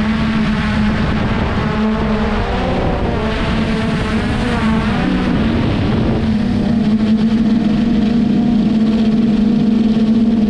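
Traxxas Aton quadcopter's motors and propellers whirring in flight as a steady buzzing hum. Its pitch wavers between about three and six seconds in, then it settles and grows slightly louder.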